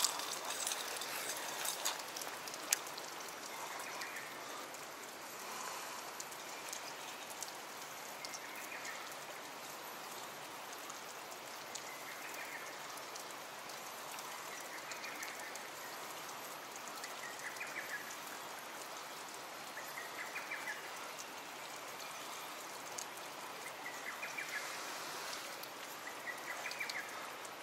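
Steady sound of water trickling and dripping, with a faint short chirp every two to three seconds.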